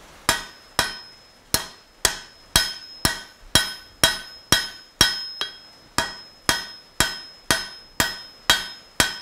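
Hand hammer striking a red-hot steel bar on an anvil, drawing it out into a taper. The blows come in a steady rhythm of about two a second, each with a short metallic ring.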